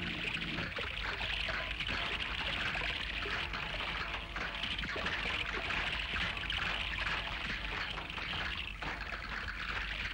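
Water from a fountain jet splashing and rushing steadily.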